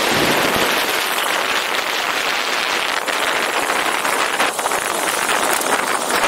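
Storch STOL light aircraft's engine and propeller running as it taxis on grass, heard as a loud, steady rushing noise.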